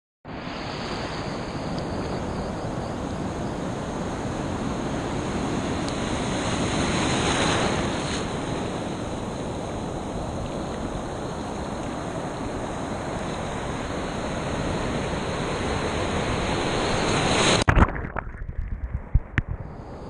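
Ocean surf washing around a waterproof GoPro held down in the foam: a steady rushing hiss of breaking waves and swash, a little louder about seven seconds in. Near the end a couple of sharp knocks, then the sound goes muffled with splashy thumps as water washes over the camera.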